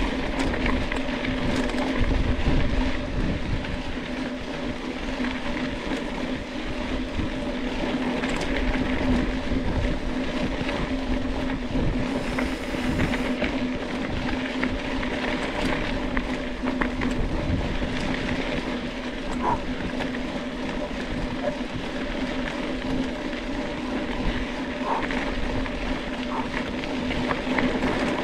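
Mountain bike riding at speed down a dirt trail: a steady tyre hum with rolling rumble and wind buffeting on the camera microphone, and a few small rattles.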